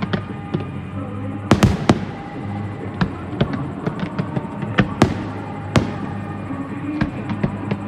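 Fireworks shells bursting with a run of sharp bangs, the loudest cluster about a second and a half in and more at intervals after, over music with steady held notes.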